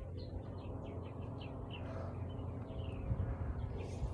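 Birds chirping: many short, quickly falling notes in rapid succession, over a steady low rumble.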